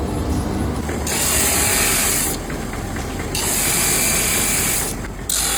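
A power tool grinding in three long hissing bursts, each a second or more, over a steady machine rumble.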